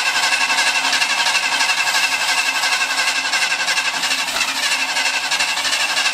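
The 1968 Ford F-250's engine going steadily with a fast, even pulse, in the attempts to get it to run; it does not want to settle into an idle.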